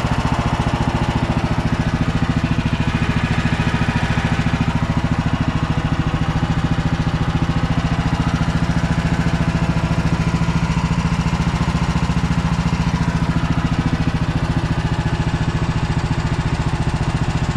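Mini excavator's small engine running steadily at a constant speed, with a fast, even pulsing beat and no revving.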